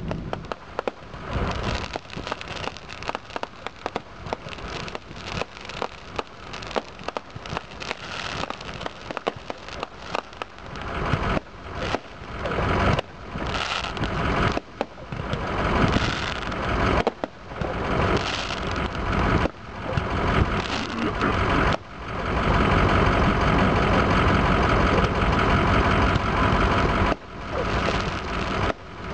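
Fireworks going off: a run of sharp bangs and crackles from bursting shells, with a louder, steadier crackling hiss for several seconds in the last third.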